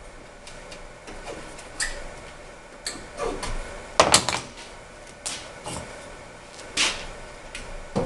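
Sheet-metal parts, a galvanized steel fan adapter and a blower housing on its metal base plate, being handled and fitted together: scattered knocks and light metal clatters, the loudest cluster about halfway through and another strong knock near the end.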